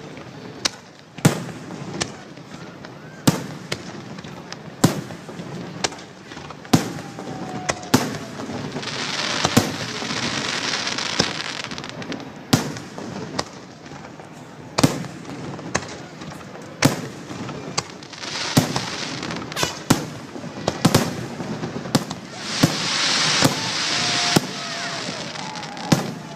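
Fireworks display: aerial shells bursting in a steady run of sharp bangs, roughly one a second. Two stretches of dense crackling come about a third of the way in and again near the end.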